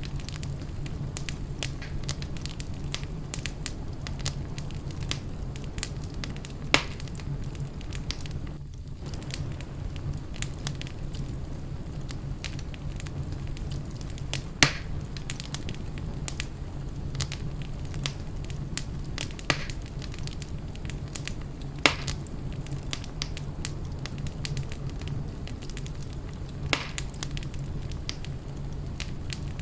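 Wood fire in a fireplace crackling steadily over a low rumble, with a handful of louder, sharper pops spread through.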